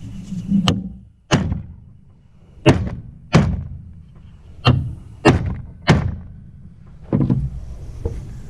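Hammer blows on an old wheel bearing used as a driver, tapping a new wheel bearing into a side-by-side's wheel hub by its outer race. About eight sharp strikes, unevenly spaced, each with a short ring.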